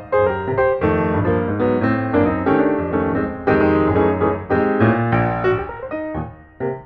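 Background piano music: a quick, flowing run of notes that softens briefly near the end.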